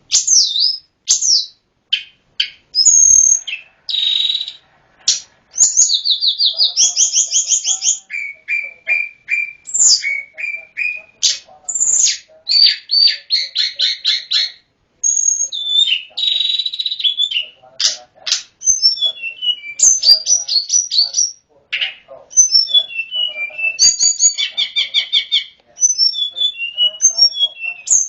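Tledekan gunung singing a fast, varied song of high chirps, trills and rapid strings of repeated notes, phrase after phrase with short pauses between.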